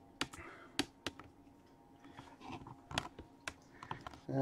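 A handful of sharp, scattered clicks and ticks over a faint steady hum; a man's voice starts right at the end.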